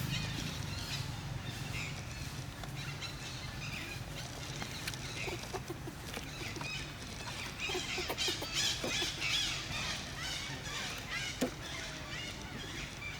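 Many short, high chirping and squawking animal calls, busiest about eight to ten seconds in, over a low steady hum.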